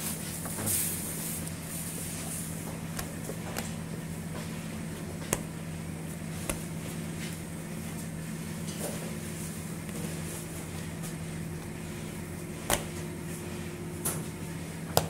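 A steady low mechanical hum, with a few short, sharp clicks scattered through it.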